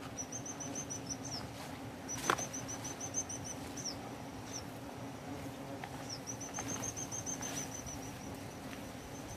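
A small bird singing over and over: quick runs of thin, high notes, each run ending in a falling note, over a faint steady low hum. A single sharp snap comes about two seconds in.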